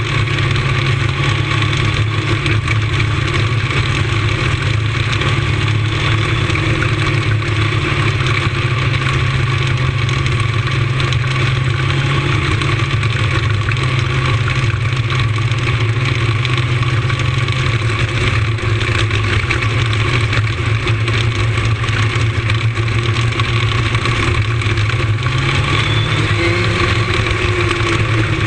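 Lightning sprint car engine heard onboard, running at steady, fairly low revs. It revs up a little near the end.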